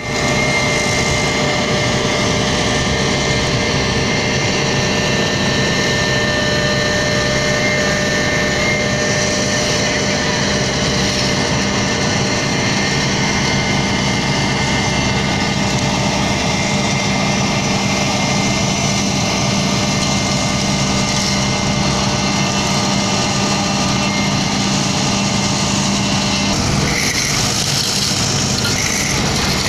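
Diesel engine and machinery of a Sumitomo HA90C asphalt paver running steadily while it lays asphalt, with a steady hum. Near the end the hum drops out, and a few short high-pitched chirps are heard.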